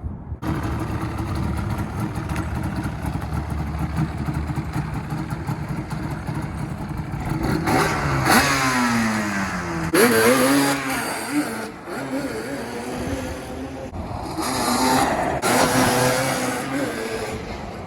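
Yamaha Banshee 350's twin-cylinder two-stroke engine, on stock exhaust pipes, being ridden hard. It runs steadily at first, then revs up and down in sharp sweeps about halfway through, and opens up loud again near the end.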